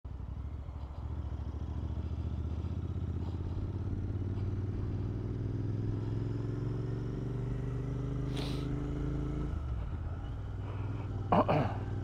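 Royal Enfield Interceptor 650's parallel-twin engine running as the motorcycle rides along, its note climbing slowly, then dropping abruptly about nine and a half seconds in and settling lower. A short hiss comes about eight and a half seconds in.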